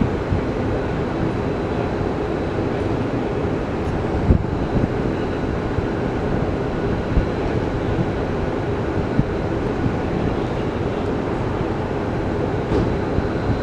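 Steady low vehicle rumble with a few faint knocks.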